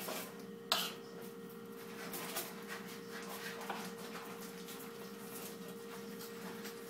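Quiet kitchen handling sounds over a steady electrical hum: one sharp click or tap a little under a second in, then a few faint soft knocks.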